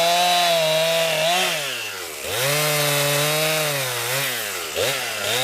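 Two-stroke chainsaw running at high revs and cutting wood, its engine pitch sagging as the chain bites into the log, about a second in and again near the end, and climbing back between cuts.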